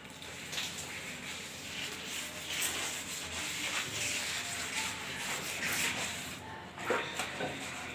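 Scrubbing a wet tiled floor and steps, with uneven rubbing strokes.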